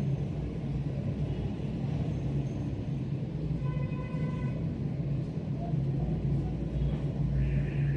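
A steady low mechanical hum and rumble runs unchanged throughout.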